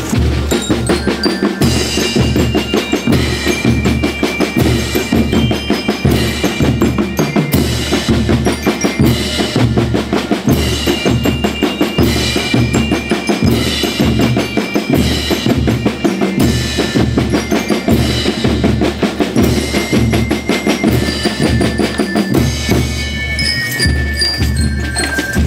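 School rhythm band (banda rítmica) playing: bass drums and snare drums beat a fast, steady march rhythm, with a high melody line of short tones over it.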